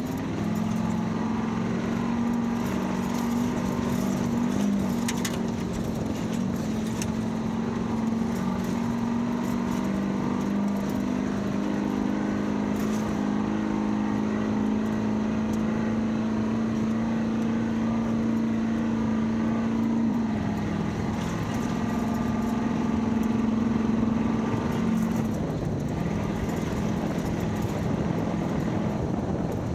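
Stock 1972 Ford Bronco's engine running steadily under load while driving, with a constant hum of road noise. The engine note dips briefly about two-thirds of the way through and drops again near the end. A few sharp knocks come through early on.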